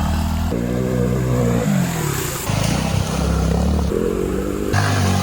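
Bajaj Platina motorcycle's single-cylinder engine revving hard under load, its pitch rising and falling. The sound changes abruptly several times, as if joined from short separate takes.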